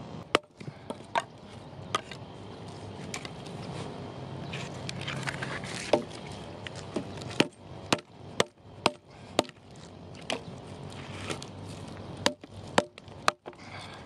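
Hatchet chopping dead, weathered logs: about a dozen sharp blows, irregularly spaced, some in quick runs about half a second apart, with crackling of wood in between.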